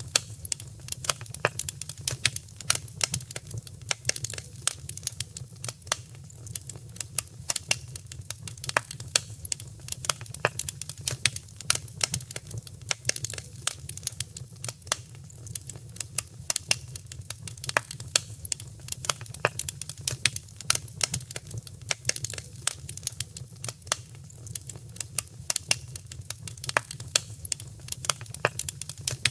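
Wood fire crackling steadily in a fireplace: dense, irregular pops and snaps over a low steady rumble of the flames.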